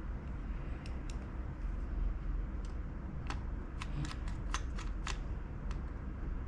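Light, sharp clicks and ticks of small laptop parts and screws being handled during a hard-drive swap, a few at first and closer together around the middle, over a low steady hum.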